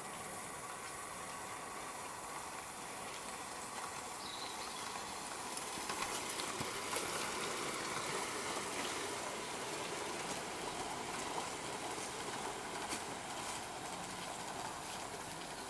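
O gauge model trains running on garden-railway track: a steady running noise with many faint clicks of wheels over the rails, a little louder around the middle.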